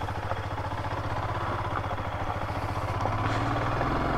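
Motorcycle engine running steadily with an even firing beat, growing slightly louder toward the end.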